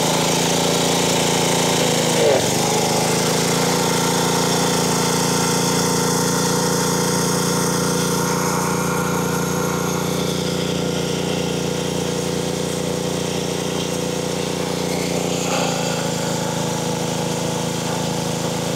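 Honda GCV160 single-cylinder engine on a pressure washer running steadily at just over 3,300 rpm on a newly fitted carburetor, which the owner finds a little too fast. Its note shifts slightly about two seconds in and again some fifteen seconds in.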